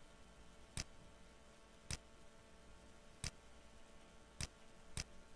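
Computer mouse clicks: about six single sharp clicks at uneven intervals, roughly a second apart, over faint steady background hum.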